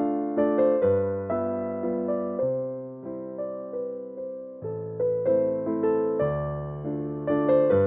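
Background music: a gentle keyboard piece, a piano melody of struck notes that fade, over long low bass notes.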